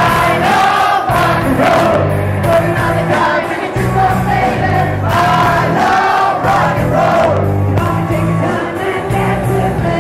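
Loud music with singing over a steady beat.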